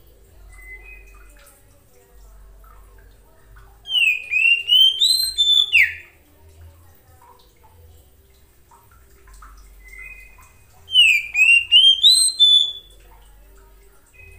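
Oriental magpie-robin (kacer) singing: two loud phrases of quick whistled notes that sweep up and down, one about four seconds in and one about eleven seconds in, each about two seconds long, with a few soft short notes between them.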